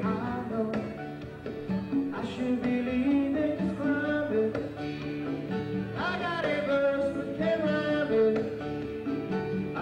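Live band music: a male singer singing over strummed acoustic guitar and band accompaniment.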